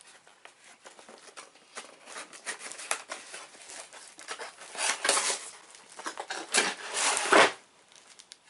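Cardboard shipping box being opened by hand: tape tearing and cardboard and packing material scraping and rustling, with small clicks throughout. Louder tearing and sliding noises come about five seconds in and again near seven seconds, the second ending in a dull thump.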